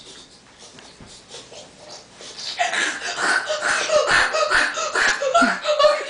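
Faint rustling at first. From about two and a half seconds in, a child's voice gives a quick string of short, breathy, wordless vocal sounds, which stop abruptly at the end.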